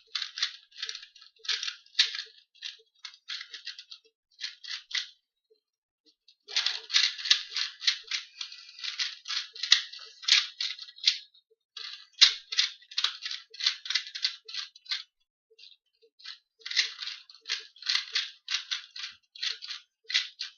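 A 2x2 Rubik's cube being turned fast in a speed-solve: rapid runs of small plastic clicks and rattles, broken by short pauses about five and eleven seconds in.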